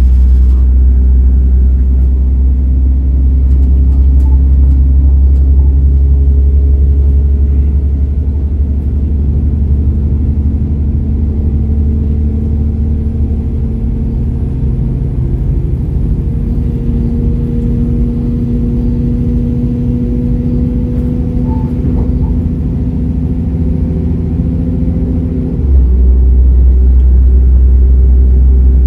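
Class 172 Turbostar diesel multiple unit heard from inside the carriage under way: the MTU underfloor diesel's deep drone and the ZF transmission's whine climb slowly in pitch as the train gathers speed. Near the end the note changes abruptly as the gearbox shifts.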